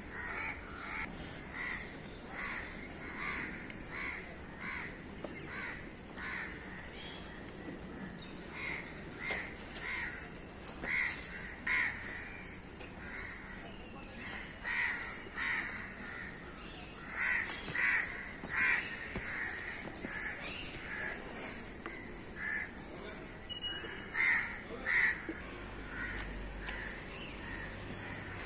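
Crows cawing over and over, short calls coming about once a second or faster, now and then overlapping, with the loudest calls around the middle and near the end.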